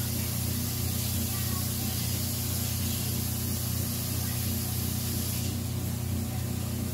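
Kitchen tap running in a steady spray, as for washing hands, over a steady low hum.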